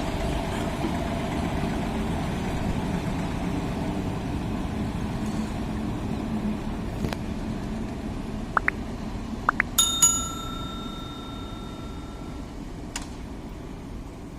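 Steady low rumble of the twin WAP-4 electric locomotives, slowly fading. About two-thirds of the way through, a few sharp metallic clicks are followed by a single bell ring that dies away over about two seconds.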